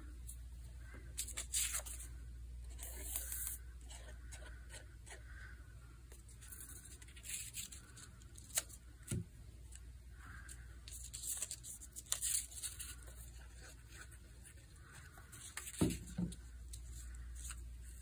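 Quiet rustling and sliding of construction paper being handled and pressed flat on a tabletop, with scattered light taps and a couple of soft thumps.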